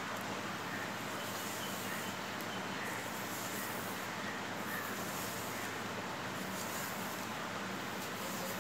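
Steady background hiss, with soft rustles every second or two as a plastic comb is drawn through long hair.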